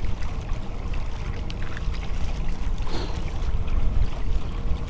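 Wind rumbling on the microphone and water moving along the hull of a pedal-drive kayak underway, with a faint steady hum.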